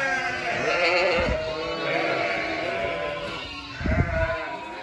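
A flock of sheep and lambs bleating, several calls overlapping, with two low thumps, the louder one near the end.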